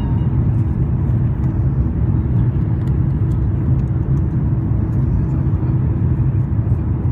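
Airbus A330-322 cabin noise on approach: a steady, loud low rumble of its Pratt & Whitney PW4168 engines and the airflow over the extended flaps, heard inside the cabin, with a faint steady hum above it.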